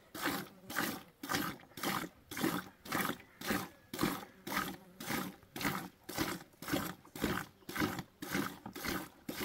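Hand-milking a cow: milk squirting into a pail in even, hissing strokes, about two a second.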